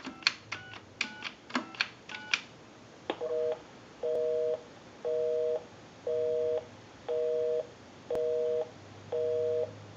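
Payphone touch-tone keypad sending a quick run of about eight DTMF digit tones, then a click, then a North American busy signal: a two-tone beep pulsing about once a second, half on and half off, meaning the dialed line is busy.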